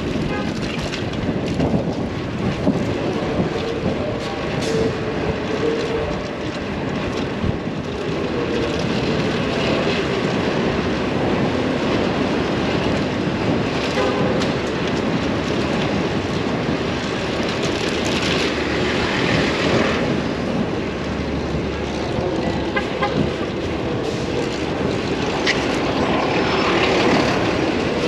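Busy city street traffic heard from a moving bicycle: a steady din of cars and buses.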